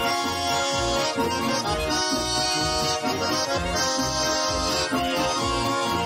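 Russian garmon and button accordion (bayan) playing a folk tune together without singing: sustained chords over a steady, bouncing bass rhythm.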